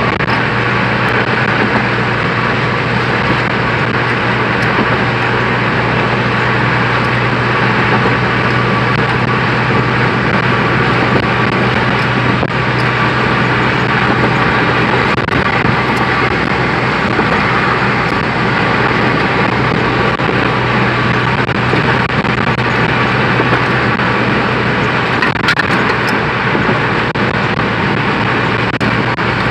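Steady road noise heard inside a moving car's cabin at highway speed: a constant drone of tyres and engine with a low hum underneath.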